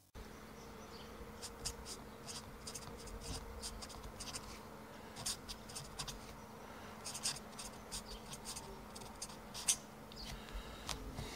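Felt-tip marker writing on paper: a quick run of short, high-pitched strokes, over a steady low hum.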